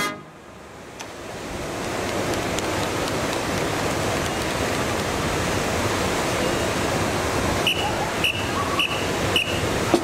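Strong wind buffeting the microphone in a loud, steady rush after a brass band stops playing. Near the end come four evenly spaced clicks, about half a second apart.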